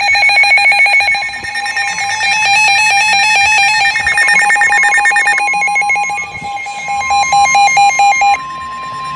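Several NOAA weather radios going off at once for a Special Marine Warning: overlapping rapid electronic alarm beeps and warbling digital data bursts. They cut off sharply near the end, leaving one steady alert tone that had come up a few seconds earlier.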